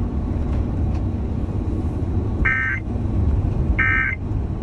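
Emergency Alert System end-of-message data tones coming through the van's FM radio: two short, buzzy bursts about a second and a quarter apart, closing the flood-evacuation alert. Underneath, the steady low rumble of the diesel van's engine and tyres on the road inside the cab.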